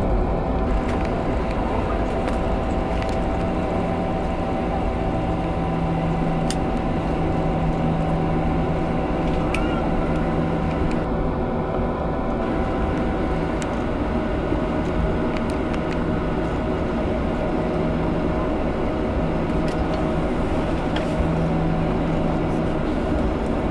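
Cabin noise of a Boeing 737-700 taxiing after landing: the steady hum of its CFM56-7B jet engines at idle, with a few held tones and a handful of faint ticks.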